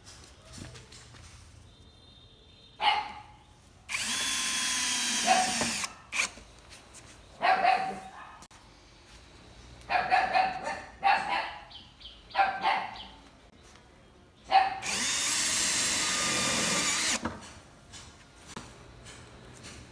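Cordless brushless 20 V drill-driver running twice, each time for about two seconds, as it drives screws into a solar panel's metal frame. A dog barks in short bursts between the runs.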